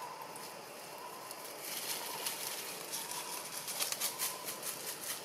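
Dry fallen leaves crackling and rustling under a baby macaque's hands and feet as it moves across the leaf litter, starting about two seconds in as a quick run of crisp crackles.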